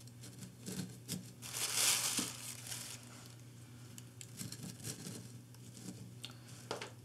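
Soft rustling and small crunches of potting soil as succulent cuttings are pushed in by hand, with a louder scraping rustle about two seconds in.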